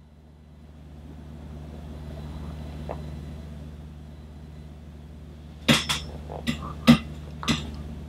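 Sharp clicks and cracks from the jaw and neck as the jaw is worked side to side with the head rotating: about five clicks, packed together in the second half. Joint noises like these are common during jaw-mobility exercises and vary with age and condition.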